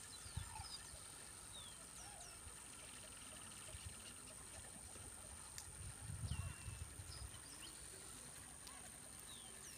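Faint pondside ambience with scattered short, falling bird chirps and a steady high-pitched whine. A brief low rumble comes about six seconds in.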